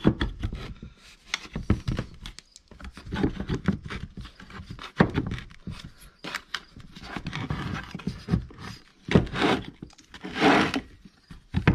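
Handling noise from reassembling an ARB twin air compressor: irregular clicks, knocks and scrapes of metal and plastic pump parts being turned and fitted together by hand, with a longer scrape near the end.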